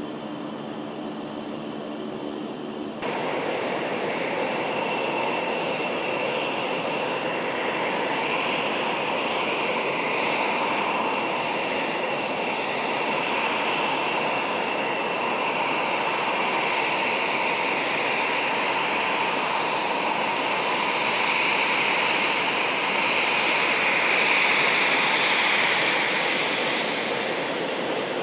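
Fighter jet engines running at taxi power: a steady jet roar with a high turbine whine, growing a little louder near the end. For the first few seconds there is a lower, steadier machine hum instead.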